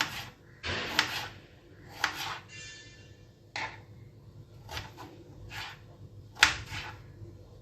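Kitchen handling sounds: a string of short knocks, clatters and scrapes of utensils and vessels, about seven in all, the sharpest about six and a half seconds in.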